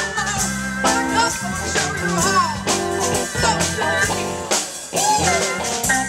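Live band playing a groove on electric guitars, bass and drum kit, with a woman singing and sliding between notes.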